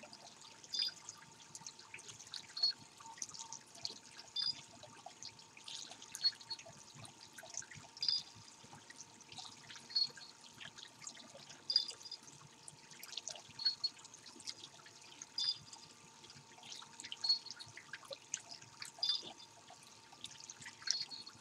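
Water trickling and dripping in a garden pond, with a stronger plop about every two seconds and a faint steady hum underneath.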